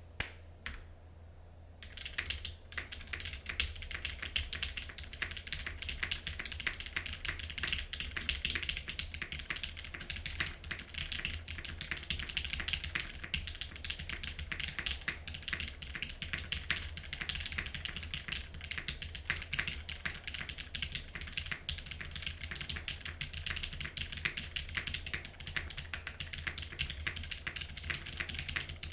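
Custom mechanical keyboard being typed on continuously in fast, irregular keystrokes that start about two seconds in: a Perry Jinsoul with an aluminium plate, linear Cherry MX Black switches heavily lubed with Krytox 205g0, and GMK KA1953 doubleshot ABS keycaps.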